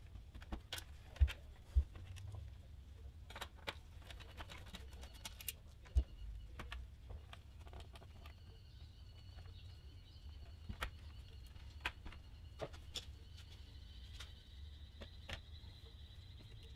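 Handling noise from taking apart a Tektronix TDS2024C oscilloscope: scattered clicks and light taps of its metal chassis and plastic case parts, with three louder knocks in the first six seconds.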